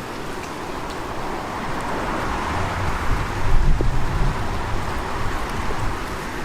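Cold, gusty wind blowing, with a rumble of wind buffeting the microphone that swells and eases, stronger from about halfway through.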